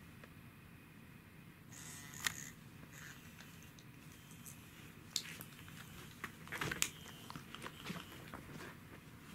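Faint scattered taps and clicks from a cat pawing at and brushing past a plastic insect case, with one sharp tap about two seconds in and a short cluster of taps near seven seconds.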